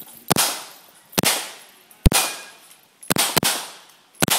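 Six pistol shots fired at an uneven pace, two of them in quick succession about three seconds in, each followed by a short ringing echo.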